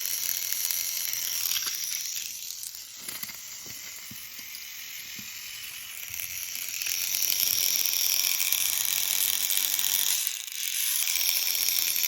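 Battery-powered TrackMaster Douglas toy train engine running, its small electric motor and plastic gears whirring steadily; it drops quieter for a few seconds and grows louder again about halfway through. The owner says it runs a little poorly.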